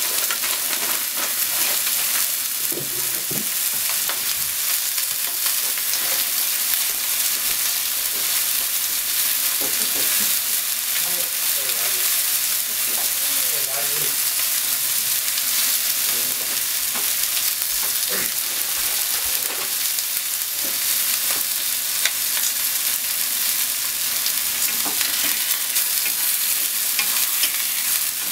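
A chicken thigh frying in oil in a frying pan, sizzling steadily, with occasional faint crackles of spatter.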